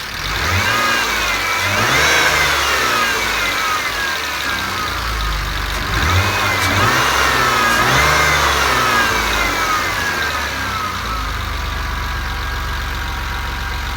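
A BMW M50B20 2.0-litre straight-six, warmed up, is revved twice from idle. Each rev climbs and falls away over a few seconds before the engine settles back to a steady idle. The owner hears a knocking from this engine when it is warm and suspects the injectors or the hydraulic lifters.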